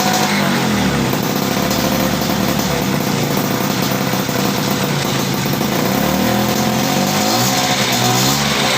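Vespa PX 150 scooter's single-cylinder two-stroke engine running on test after years of disuse, its throttle blipped so the pitch rises and falls over and over.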